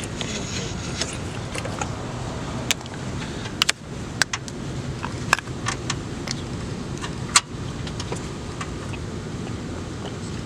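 Hand tools clinking against metal in a car's engine bay, sharp single clicks a second or so apart, the loudest about seven seconds in, over a steady low rumble.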